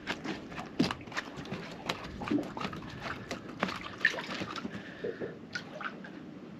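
Water splashing and dripping with irregular taps and knocks, about one to three a second, as a freshly caught bass is landed and handled.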